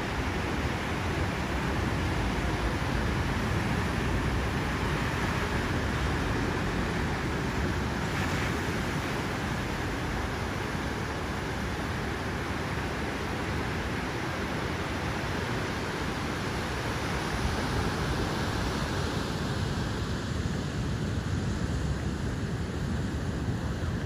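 Ocean surf breaking on a beach, a steady, even wash of waves.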